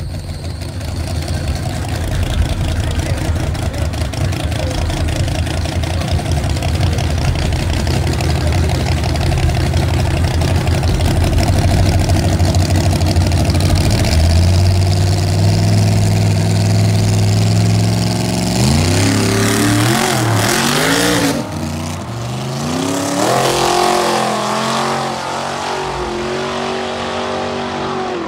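Two drag cars' engines, a nitrous donk with fender-exit exhaust and a C7 Corvette V8, idling at the starting line, then revved hard in sharp rising and falling sweeps. A little past two-thirds of the way in the level drops suddenly as they launch, and the engines climb in pitch through the gears as the cars accelerate away down the strip.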